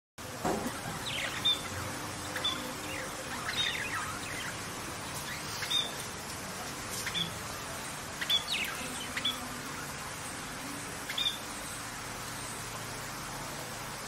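Budgerigars chirping: short, sharp chirps scattered every second or so over a steady hiss, dying away near the end.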